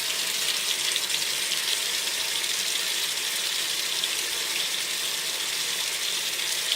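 Washing machine filling: a steady rush of water pouring into the drum.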